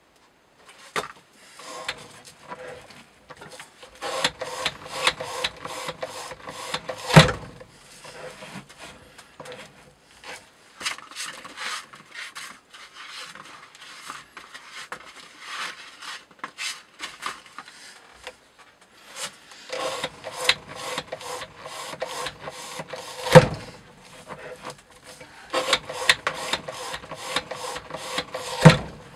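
A knife being handled and fitted into a test rig's holder: irregular metal scraping, rubbing and clicking, in places with a short ringing tone. Three sharp knocks stand out, about 7 s in, about 23 s in and just before the end.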